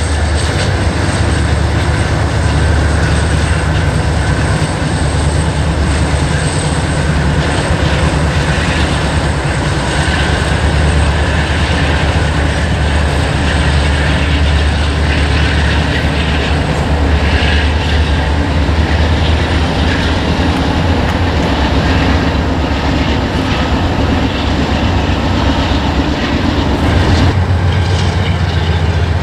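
Norfolk Southern intermodal freight train crossing a long concrete arch bridge: diesel locomotives running and the trailer-carrying cars rolling, a steady low rumble.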